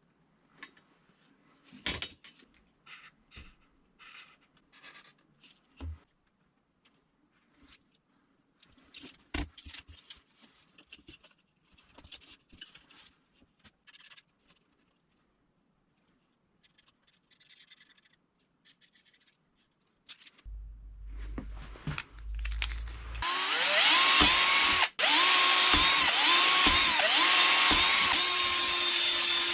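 Scattered clicks and knocks of parts and tools being handled. Then an electric drill starts up loudly and is run in about six short pulses, its whine dipping and recovering each time, before running steady near the end.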